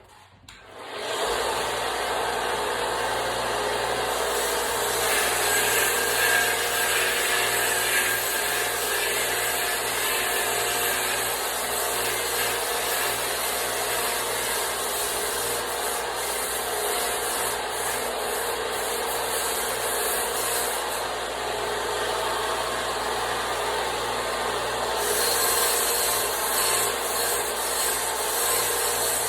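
Electric grinder running and grinding the steel of a forged center punch to a point, a steady abrasive rasp over the motor's hum that starts about a second in.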